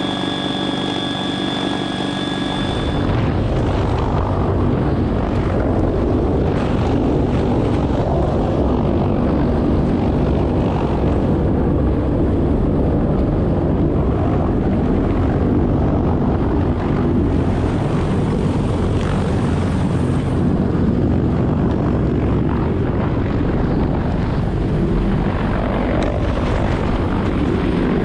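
CH-53K King Stallion heavy-lift helicopter, its three turboshaft engines running. The first few seconds carry a steady high whine from the turbines and drivetrain. From about three seconds in, a loud, steady, deep rushing of rotor noise and downwash close to the hovering aircraft takes over.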